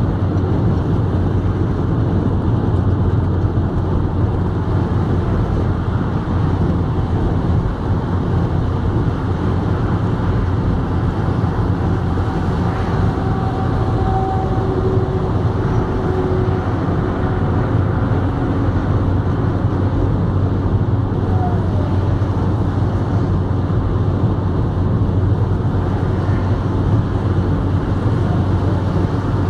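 Car cabin noise at motorway speed: a steady low drone from the engine and the tyres on the road.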